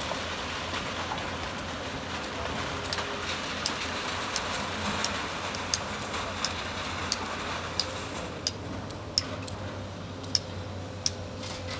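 SANY hydraulic excavator's diesel engine running steadily while it loads a truck and swings, with sharp metallic clicks about once a second through the middle and later part.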